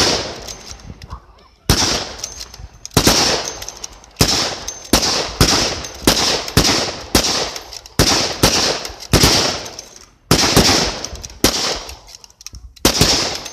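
Several Enfield bolt-action rifles in rapid fire: a long string of sharp cracks, one to two a second, some shots close together, each trailing off in a short echo.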